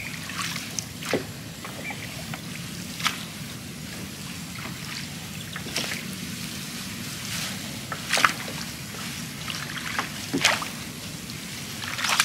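Water trickling and splashing in short bursts every second or two as a trotline is worked from a small boat, over a low steady hum.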